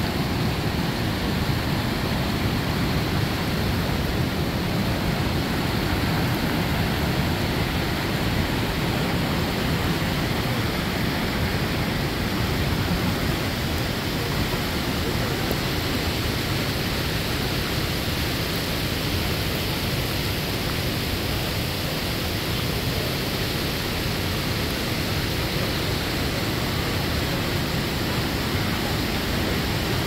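Manavgat Waterfall, a wide, low cascade on the river: water rushing steadily over the falls, a deep, even rush that does not change.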